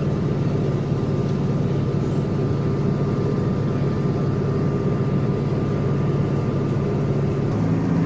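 City bus engine running steadily inside the cabin, a low hum with the air-conditioning blowing. Near the end the engine note rises and gets louder as the bus pulls away.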